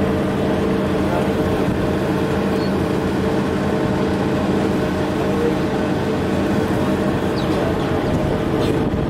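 A passenger ferry's diesel engines running with a steady drone of several even tones over a constant rushing noise, heard on the ship's open deck.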